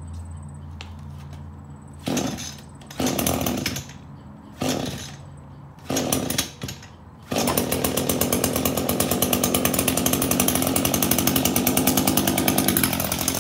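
Shindaiwa T235 21cc two-stroke string trimmer being pull-started cold: several short sputters on the cord pulls, then it catches about seven seconds in and runs steadily, its speed dipping slightly near the end.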